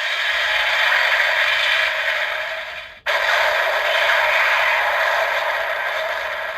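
DX Arc Cube Premium toy playing a sound effect through its small speaker: a harsh, scratchy noise that cuts off about three seconds in, starts again at once and slowly fades.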